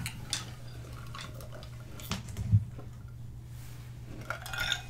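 A person sipping water from a glass of ice: faint swallows and small clinks, the most noticeable about halfway and near the end, over a steady low hum.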